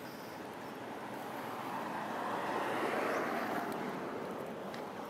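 A passing vehicle's steady rumble, swelling to its loudest about three seconds in and then fading away.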